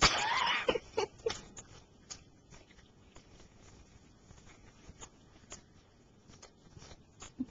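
Dog crunching and chewing popcorn, with sparse crisp crunches and clicks scattered through. There is a short, louder noisy burst at the very start, and a few stronger crunches about a second in and near the end.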